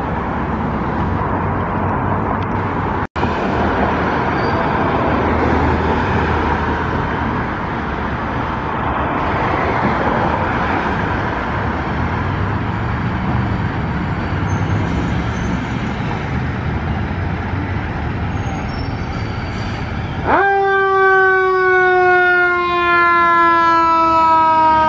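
Fire apparatus diesel engines idling, with traffic noise. About twenty seconds in, a fire engine siren starts loud, jumping up sharply in pitch and then slowly falling.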